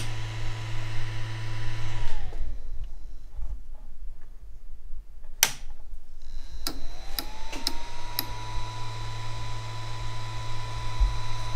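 Ender 3 V2 3D printer being power-cycled: the steady whine and hum of its cooling fans wind down and stop about two seconds in, a sharp click comes a few seconds later, and after a few lighter clicks the fans spin back up with a rising whine and the hum returns.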